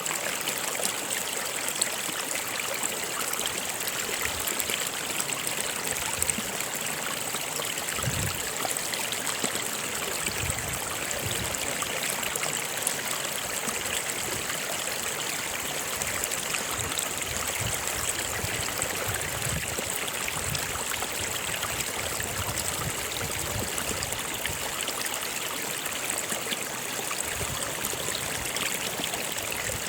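Stream water running steadily, with scattered low gurgles.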